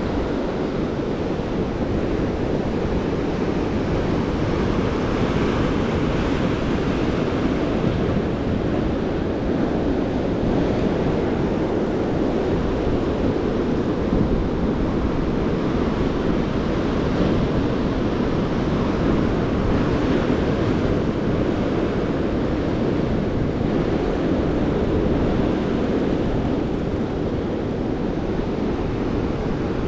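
Steady rush of ocean surf breaking and foaming over rocks, with wind rumbling on the microphone.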